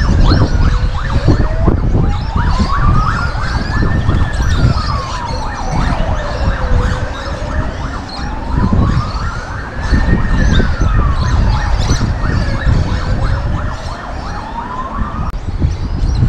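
An emergency vehicle siren wailing, its pitch rising and falling slowly, about six seconds per cycle, then cutting off near the end, over a loud low rumble.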